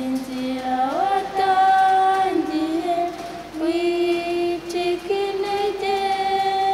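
Young voices singing unaccompanied in long held notes, the melody stepping up in pitch about a second in and then moving between sustained tones.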